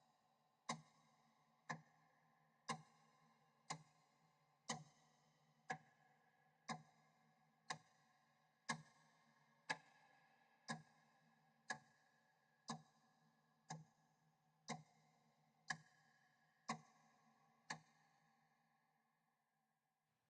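Echoing clock tick sound effect: a sharp tick once a second, each followed by a ringing echo with a low hum and a few steady tones. The ticks stop about three seconds before the end, and the ringing dies away.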